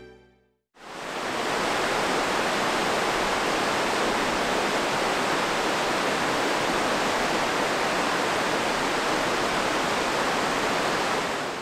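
River water rushing steadily over rocks and small rapids, starting about a second in.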